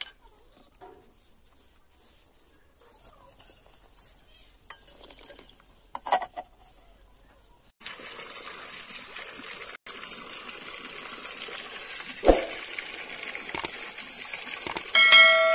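Light clinks and scrapes of a knife working potatoes over an aluminium plate. After a cut comes a steady high-pitched hiss of outdoor ambience with one sharp knock. Near the end a bright bell chime rings out, the subscribe-button sound effect.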